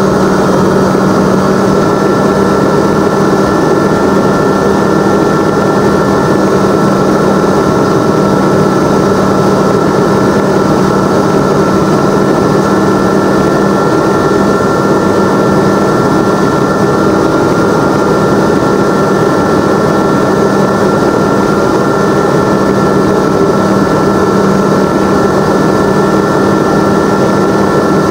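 Aeroprakt A22LS microlight's Rotax 912 flat-four engine and propeller in flight, heard from inside the cockpit as a loud, steady drone with airflow noise and no change in power.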